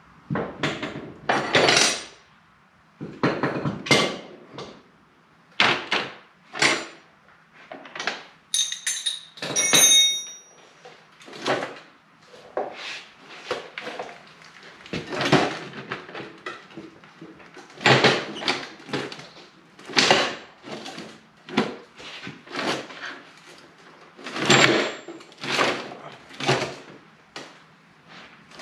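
Irregular clanks and knocks of metal tools and motorcycle parts being shifted and set down on a lift, with a short metallic ring about nine to ten seconds in.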